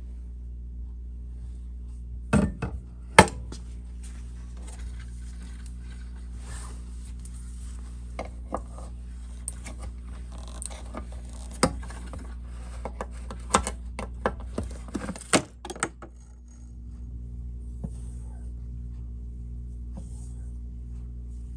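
Sharp metallic clinks and knocks from a metal paint can and a spray gun being handled, two loud ones a couple of seconds in and a run of them in the middle, over a steady low hum.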